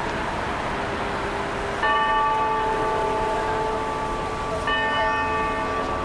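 The Wako building clock tower's time-signal chime: the same bell struck twice, about two seconds in and again about three seconds later, each stroke ringing on over a steady hum of city traffic.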